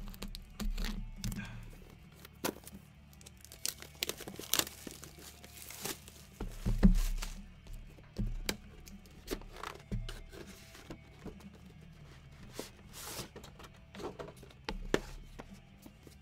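Plastic shrink-wrap being torn and crinkled off a sealed Upper Deck Supreme Hardcourt trading-card box, with scattered knocks and rustles of the cardboard box being handled. One louder thump comes about seven seconds in.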